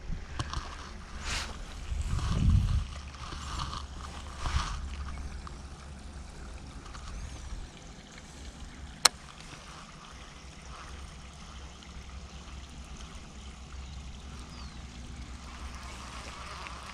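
Wind rumbling on the microphone, heaviest in the first few seconds along with a few handling bumps, then a faint steady outdoor background. A single sharp click comes about nine seconds in.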